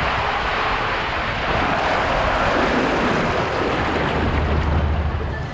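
Rushing water and the hiss of a raft sliding down a water slide tube, with wind on the microphone. About four seconds in, a low rumble joins as the raft slides out into the water of the runout channel.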